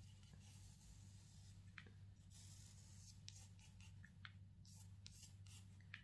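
Faint pencil strokes scratching across textured watercolour paper, a series of long strokes one after another, over a low steady hum.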